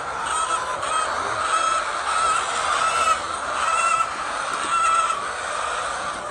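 Flock of chickens calling, short pitched calls repeating about once or twice a second over a steady din of many birds.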